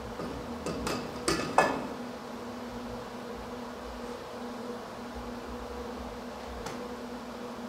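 A few sharp metal clinks of hand tools against the valve refacer's spindle and housing, bunched together about a second in, the loudest near the middle of the bunch, with one more near the end. A steady low electrical buzzing hum runs underneath.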